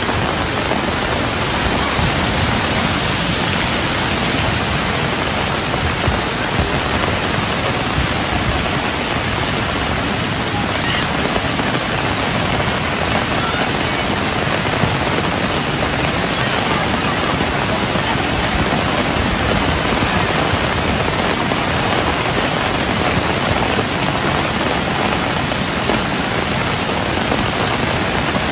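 Steady rushing noise of a muddy flash-flood torrent running down a street.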